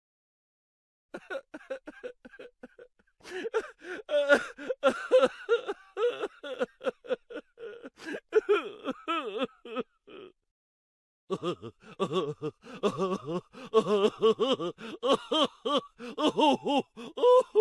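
Laughing sound effect: rapid, high-pitched bursts of laughter in two runs, broken off by a pause of about a second midway.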